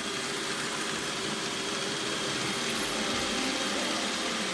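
Roomba robot vacuum running as it drives out of its dock, a steady whirr of its vacuum motor and brushes.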